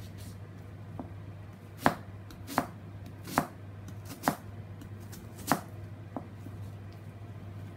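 Chef's knife slicing a white onion on a plastic cutting board: seven irregular knocks of the blade on the board, five sharp and two fainter, over a steady low hum.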